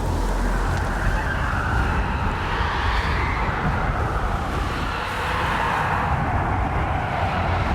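A steady, loud rumbling noise with a hissing band that slowly rises and falls in pitch, with no clear strikes or rhythm.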